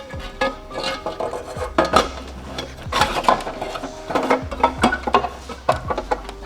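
Metal parts and tools clinking and clanking while exhaust work is done on a car: many irregular knocks, each with a short metallic ring.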